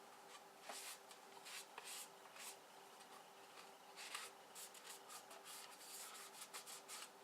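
Faint, irregular rubbing strokes of the glass of an outdoor light fixture being wiped clean after a spray of WD-40, with a faint steady hum underneath.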